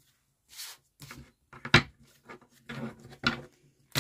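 Oracle cards being shuffled and set down: a string of short papery slaps and knocks, the sharpest a little under two seconds in.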